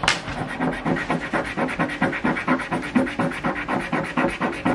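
A coin scratching the coating off a paper Win for Life scratch-off lottery ticket in quick back-and-forth strokes, about five a second, starting suddenly.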